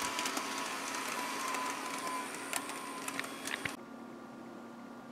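Bachmann HO-scale toy train locomotive running: a steady high whine from its cheap motor and drivetrain with scattered clicks, the sound of a rough-running, cut-rate drive system. About four seconds in, it drops abruptly to a quieter, duller running sound.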